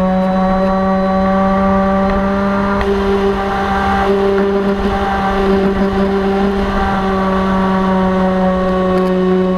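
The electric motor and propeller of an RC FPV plane, heard from the onboard camera as a steady, even-pitched drone that wavers a little in the middle. Low wind rumble on the microphone runs under it.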